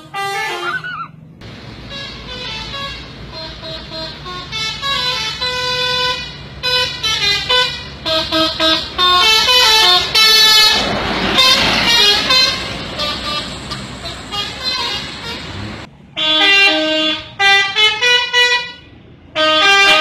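Telolet multi-trumpet bus horn playing quick stepping melodies of short tones in repeated runs, over a steady low engine sound. A loud rush of noise swells about ten seconds in and fades by twelve.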